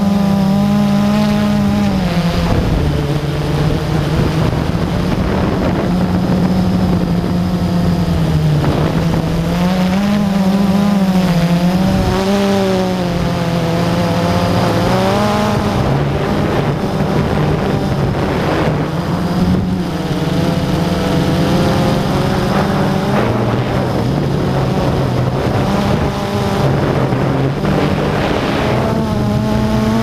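A drone's electric motors and three-blade propellers whine loudly right at the camera's microphone, mounted on the aircraft. The pitch rises and falls every few seconds as the throttle shifts in flight.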